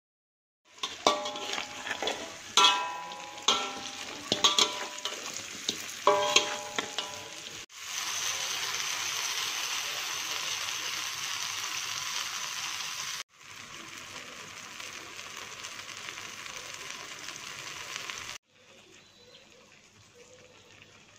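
Metal spatula clanging and scraping against a wok as fried chicken pieces are stirred, each strike ringing briefly. About eight seconds in, a loud steady sizzle starts as milk goes into the hot wok. The sizzle drops suddenly quieter a few seconds later and fades out near the end.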